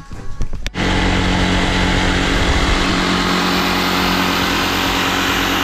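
An electric power tool's motor starts suddenly less than a second in and runs loud and steady at full speed, a hissing rush with a steady hum-and-whine underneath.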